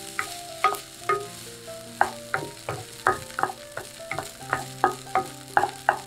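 Wooden spatula scraping and knocking against a pan while stir-frying rice, about two to three strokes a second, with the rice frying underneath.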